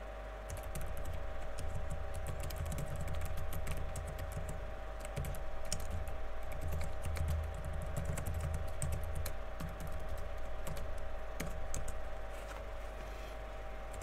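Typing on a computer keyboard: quick runs of key clicks with short pauses, stopping about twelve seconds in. A faint steady hum sits underneath.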